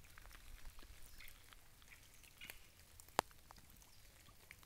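Light drizzle: faint, scattered raindrop ticks, with one sharper tick about three seconds in.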